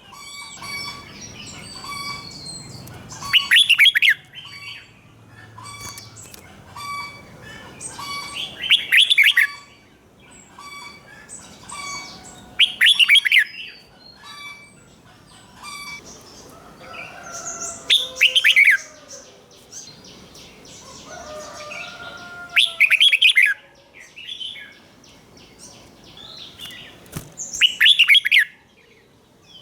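Red-whiskered bulbul singing: six loud, short warbled phrases, one about every four to five seconds, with softer chirps and repeated short notes in between.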